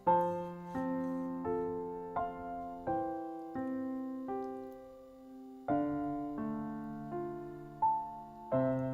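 Soft background piano music, single notes and chords struck at a slow, gentle pace, each ringing out and fading.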